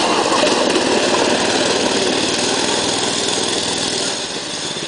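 Small engine of a buggy-style go-kart running under way, slowly getting quieter as the kart pulls away.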